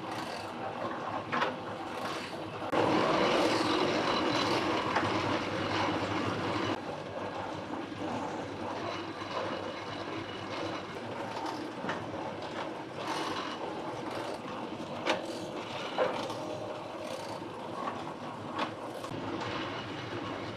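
Electric noodle-making machine running, its rollers pressing wheat dough sheets and its grooved cutter roller slicing them into thick noodles: a steady mechanical rumble and hum. It grows louder for about four seconds starting around three seconds in, with a few sharp knocks along the way.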